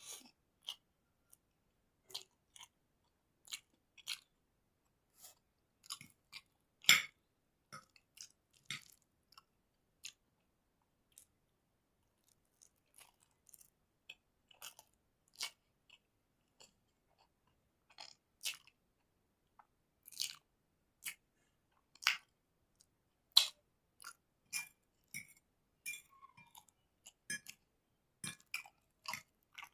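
Close-miked chewing of a mouthful of chowmein noodles: irregular wet clicks and smacks with short silences between, the loudest about 7 and 23 seconds in.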